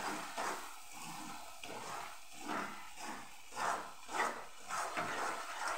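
Spatula stirring coarse urad flour roasting in ghee in a non-stick pan, with a steady sizzle and scraping strokes about twice a second. The sizzle comes from a spoonful of milk just added, cooking off so the mixture turns grainy.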